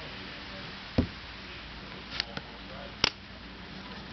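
A few sharp knocks and clicks from handling the coating container and tools, three louder ones spread over a few seconds, over a steady background hiss.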